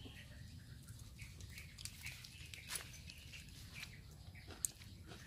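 Soft clicks and rustles of hands tearing lettuce leaves and picking food from a plate, over a low outdoor rumble with faint bird chirps. One sharper click near the end.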